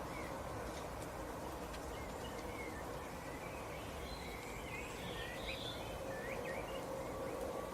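Small birds giving short, scattered chirps, busiest in the second half, over a steady outdoor background noise with a faint hum.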